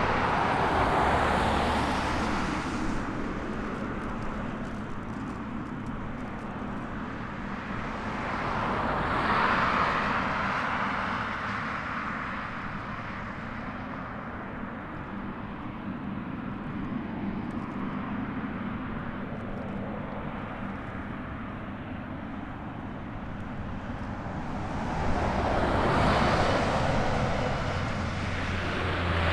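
Boeing 777-F6N freighter taxiing at low power, its twin turbofan engines giving a steady rushing jet noise that swells louder three times: at the start, about nine seconds in, and near the end.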